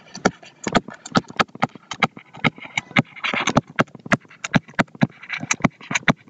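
Stylus tapping and scraping on a tablet screen during handwriting: a run of sharp, irregular clicks, about four a second, with short scratchy strokes between them.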